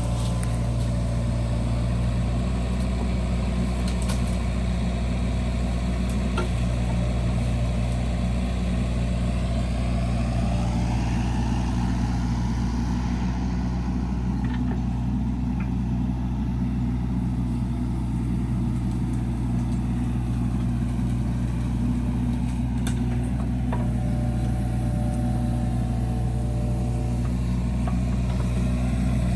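A steady, unchanging low machine hum, like an engine or motor running at a constant speed.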